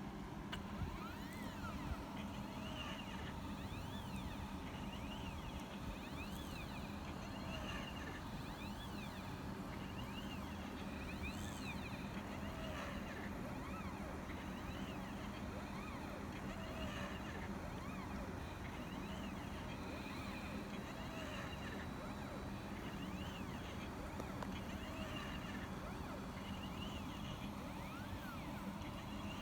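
Stepper motors of a homemade CNC pen plotter whining in many short rising-and-falling tones as it moves to write text, over a steady low hum.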